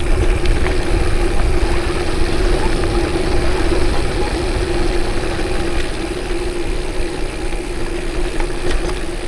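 Vehicle engine running steadily: a constant hum with a low rumble underneath, and a few faint ticks on top.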